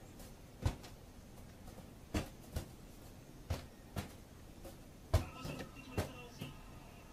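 Inflated rubber balloon being batted back and forth by a child's hands and a cat's paws: about seven light taps at uneven spacing, the loudest about five seconds in.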